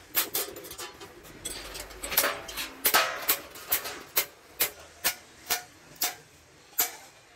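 Hand hammer striking a round sheet-metal milk-can disc on a metal block, each blow giving a short metallic ring. The blows come irregularly at first, then settle into a steady rhythm of about two a second.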